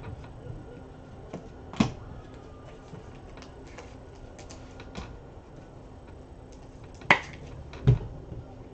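Trading-card packs and cards being handled on a tabletop: a few sharp taps and clicks, three of them louder, with faint rustling of foil wrappers between.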